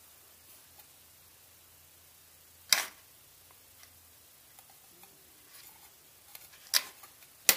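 A few sharp clicks and taps from a bare printed circuit board being handled and turned over in the hands, one about three seconds in and two more near the end, the last the loudest; faint handling rustle between them.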